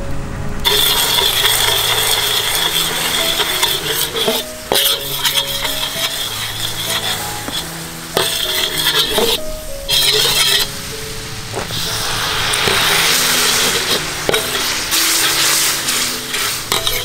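Sauce sizzling and bubbling in a hot steel wok, starting about a second in, while a metal ladle stirs and scrapes it with repeated clinks against the pan. Background music plays throughout.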